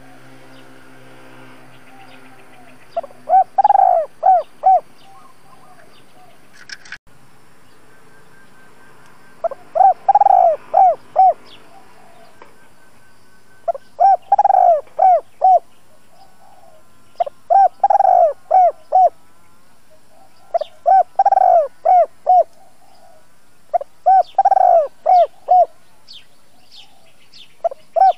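Spotted dove cooing its song as a decoy bird to draw wild doves: six phrases about three to four seconds apart, each a longer coo followed by two or three short ones. Small birds chirp faintly near the end.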